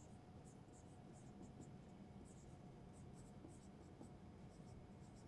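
Faint marker-pen strokes on a whiteboard: short, irregular squeaks and scratches, several a second, as letters are written.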